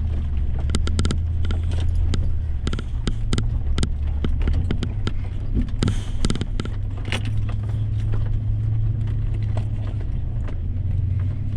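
Off-road truck engine running at low revs with a steady low hum, while frequent knocks, clunks and rattles come from the vehicle working over a rough trail.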